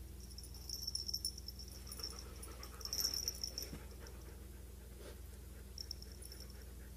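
A dog panting in short fluttering bursts, the loudest about a second in and about three seconds in, over a steady low hum.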